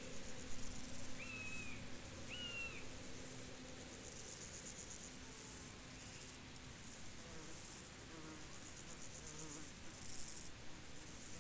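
Field insects trilling in repeated bursts of high, rapid pulses, a steady chorus. Two short high whistled notes sound about one and two seconds in.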